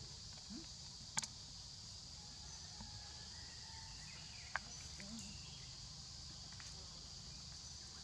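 Faint, steady high-pitched drone of crickets or other insects, with two sharp clicks, one about a second in and another about four and a half seconds in.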